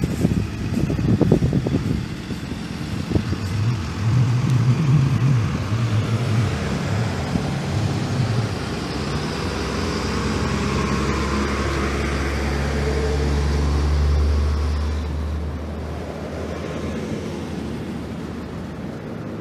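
Road traffic passing close by: a school bus's engine grows louder, rumbles past about two-thirds of the way in and fades, with pickup trucks and cars following. A few low thumps on the microphone in the first couple of seconds.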